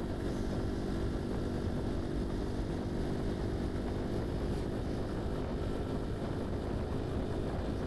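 Bajaj Pulsar NS200's single-cylinder engine running steadily at a cruise of about 60 km/h, heard from the saddle.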